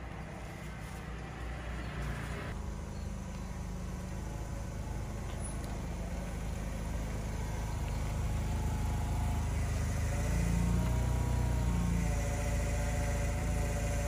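Motor vehicle engine running, growing gradually louder, with its pitch wavering up and down in the later seconds.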